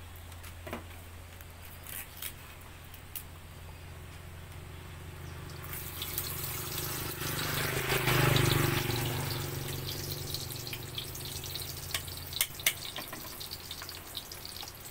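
Fat heating in a cooking pan and beginning to sizzle: a hiss swells from about six seconds in, peaks about halfway through, then settles into a steady sizzle over a low hum, with a few light clicks.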